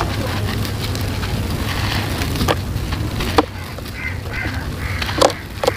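Hands squeezing and crumbling a ball of gritty dried sand-cement: a grainy crunching rustle broken by a few sharp cracks as pieces snap off, the loudest in the second half.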